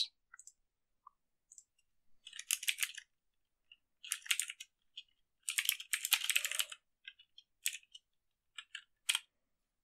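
Computer keyboard typing in short bursts of keystrokes, with pauses between the bursts.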